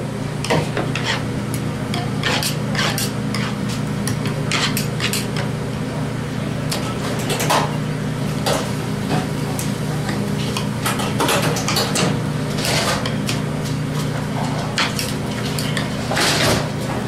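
Irregular clinks and knocks of utensils against metal pans as smoked pork butt is pulled and picked over by hand, over a steady low hum.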